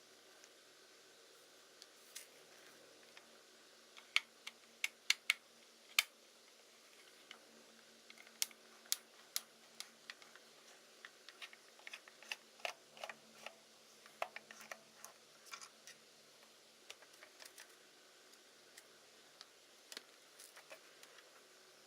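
Irregular light clicks and taps of small hard parts being handled, with a cluster of sharper clicks about four to six seconds in and another about eight to nine seconds in, then scattered softer ticks.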